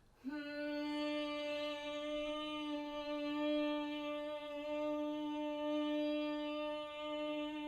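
A woman humming one long, steady note on a single pitch: a yoga honeybee (humming) breath, the hum carried on a long, slow exhale. It starts a moment in and is held without a break.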